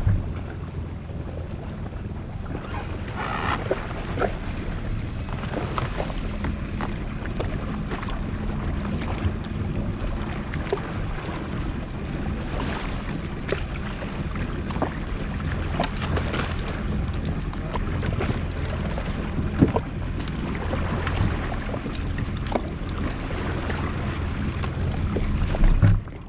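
Jet ski engine running steadily at low trolling speed, with water slapping against the hull in scattered short splashes and some wind on the microphone.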